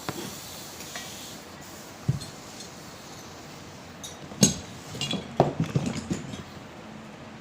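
Light metal clinks and knocks of tools and parts being handled during strut disassembly: a single knock, another a couple of seconds later, then a quick cluster of clinks near the end.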